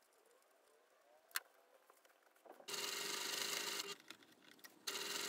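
Scissors cutting denim, quiet, with one sharp snip about a second in. A little past halfway an electric sewing machine starts stitching a denim strap, runs steadily for about a second, stops briefly, and starts again near the end.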